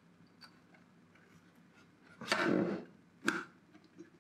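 Circuit-board handling on a wooden bench: a few faint small clicks, then a short scraping rustle about halfway through as the board is laid down and shifted, and a single sharp click a second later.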